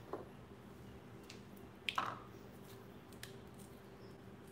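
Faint knife work on a jalapeño at a cutting board: the blade scraping out the seeds and white pith, with a few light clicks and taps, the loudest about two seconds in.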